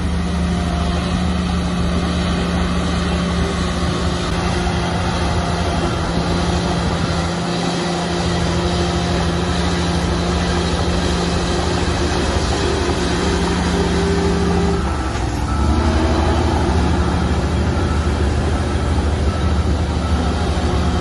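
Heavy diesel earthmoving machinery running steadily under load, with the engine note shifting and growing slightly louder about fifteen seconds in.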